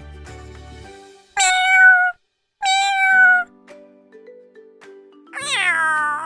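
Domestic cat meowing three times, the third meow sliding down in pitch, over soft background music.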